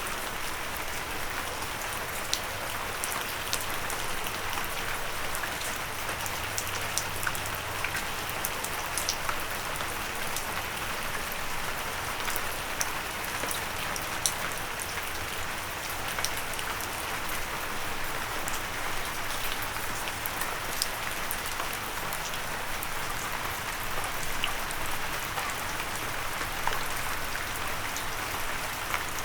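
Steady rain falling and hitting a windowsill, with many small sharp drop impacts ticking over an even hiss.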